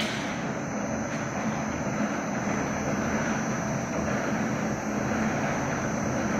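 Steady drone of workshop machinery: a low electric hum with a thin high whine above it, unchanging throughout, with a short knock right at the start.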